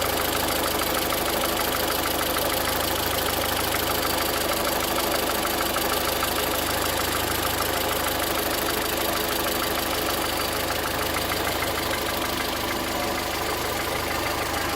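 Volkswagen Voyage's EA111 engine idling steadily with a fast, even ticking over the running note: the strange noise the owner hears from this new engine.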